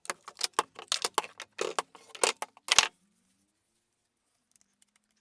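A quick, irregular run of sharp clicks and knocks as the glued wooden steering wheel is handled and tested, ending about three seconds in; the glue has set hard.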